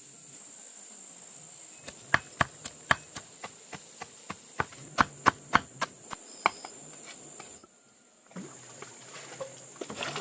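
A quick irregular run of about twenty sharp knocks or chops over some four seconds, starting about two seconds in. A steady high insect buzz sounds behind them.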